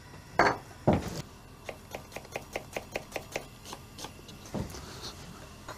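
Kitchen knife chopping onion on a chopping board in quick, even strokes, about six a second, for about two seconds. A couple of louder knocks come before the chopping and a few scattered ones after it.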